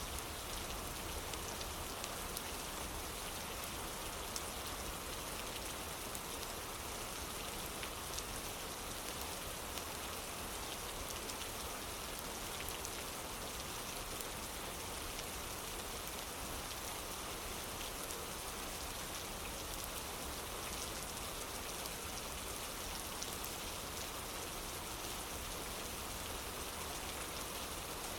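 Steady rain falling on a wooden porch, an even hiss with scattered small drop ticks throughout.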